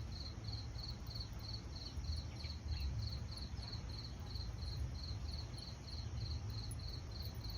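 A cricket chirping steadily, a short high pulse repeating evenly about three times a second.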